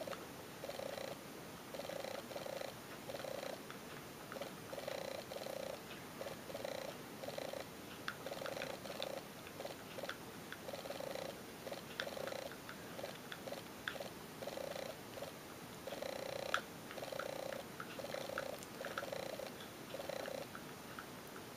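Domestic cat purring steadily in even, repeating breath cycles, with a few light clicks in the middle.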